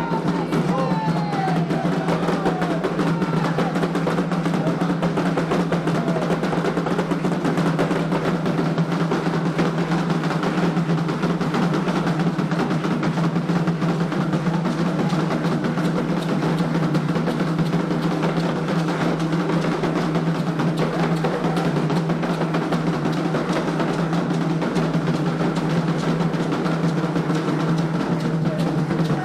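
Candomblé atabaque drumming: hand drums playing a fast, unbroken rhythm at a steady level.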